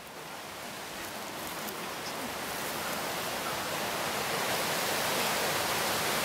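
Rushing water of a rocky stream cascading over stones, a steady even rush that grows gradually louder.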